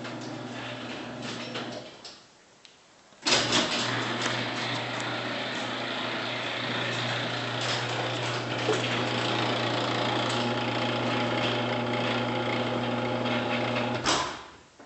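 Electric garage door opener running with a steady motor hum, stopping about 2 s in; after a short pause it starts again and runs for about 11 s with a loud clattering, grinding noise over the hum, the weird noise the door makes as it closes, which sounds like a chain drive. It ends with a sharp bang near the end.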